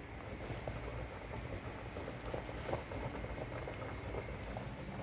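Pot of food boiling on the stove: a steady, quiet simmer with a low hum and a few faint ticks.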